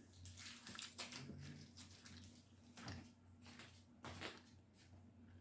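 Near silence with faint, irregular chewing and small mouth clicks from someone eating a KitKat.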